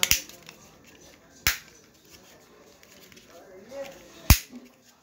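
Plastic case of a TV set-top box remote control being snapped shut by hand: three sharp plastic clicks, one at the start, one about a second and a half in, and the loudest near the end, with light handling noise between.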